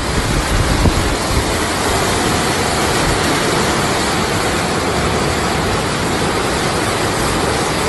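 Muddy floodwater rushing fast down a street in a steady, loud torrent.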